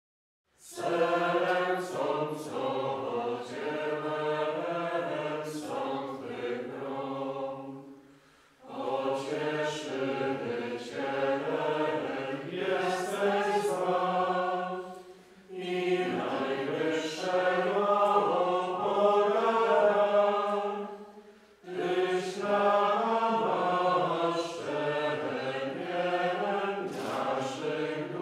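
Liturgical chant sung by voices in four long, slow phrases, with short breaths between them.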